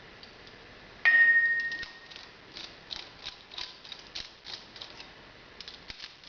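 Metal parts of a CDI 5450 hot-tap base assembly being fitted and clamped onto a steel pipe: one sharp metallic clink about a second in that rings briefly, then a run of light clicks and taps, about three a second.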